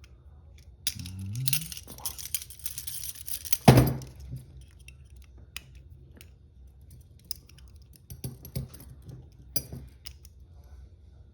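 Steel handcuffs and their chains rattling and clinking as the cuffed wearer works at them: a dense jangle over the first few seconds, one loud knock a little under four seconds in, then scattered metal clicks.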